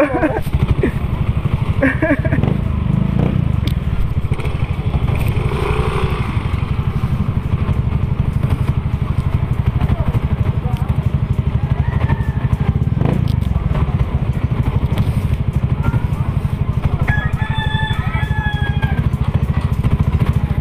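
Motorcycle engine running steadily as the bike is ridden, a fast low pulsing with wind on the microphone. A brief high-pitched call in two parts rises over it near the end.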